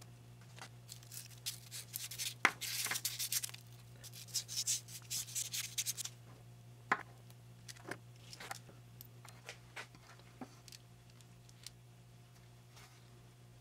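Small brass and aluminium machined parts handled on a wooden workbench: scattered light clicks as they are picked up and set down, and a few seconds of scraping and rubbing about two and a half seconds in as a brass bushing is worked onto a threaded aluminium adjuster. A steady low hum sits underneath.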